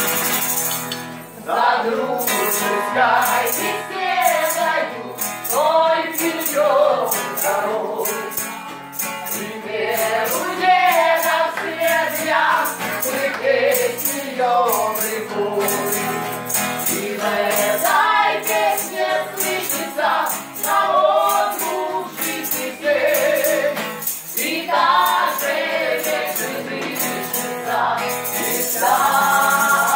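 Live Romani ensemble music: women's voices singing together to guitar accompaniment, with rhythmic percussion keeping a steady beat.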